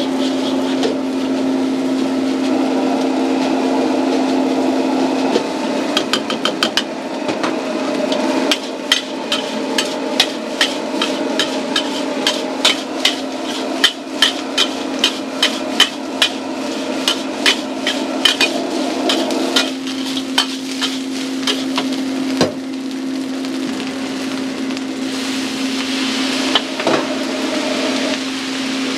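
A metal wok ladle clanks and scrapes against a steel wok as fried rice is stir-fried, in quick runs of sharp clacks several a second, over a steady hum. The clacks come from about six seconds in until about twenty, and once more briefly near the end.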